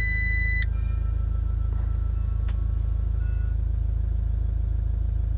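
Fiat Ducato dashboard warning beep, a single electronic tone of about half a second at the start, sounding as the check engine light comes on to signal a stored engine fault. Under it the van's engine idles steadily.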